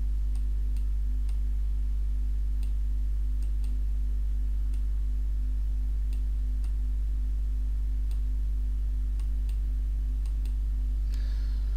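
Steady low electrical hum with faint, irregularly spaced clicks, typical of a computer mouse being worked while writing on screen.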